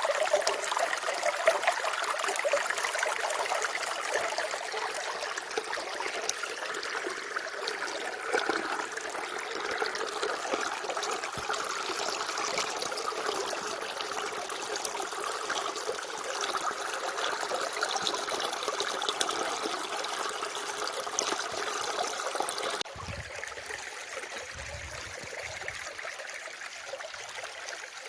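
Running water trickling steadily; it drops suddenly to a quieter level about 23 seconds in.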